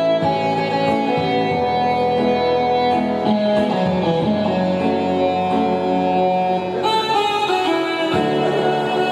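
Instrumental background music led by guitar, with no singing.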